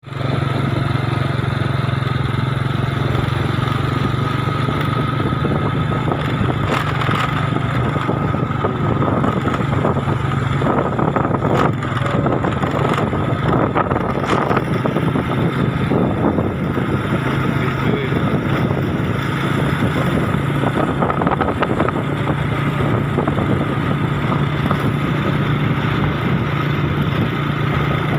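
Motorcycle engine running at a steady speed while riding, a constant low drone with road and wind noise.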